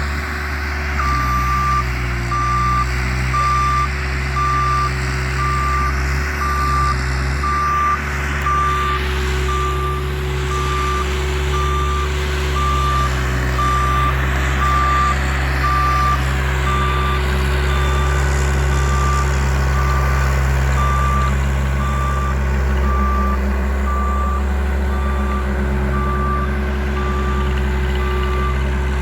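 Bobcat loader's diesel engine running steadily under a reversing alarm that beeps on one pitch about once a second, starting about a second in.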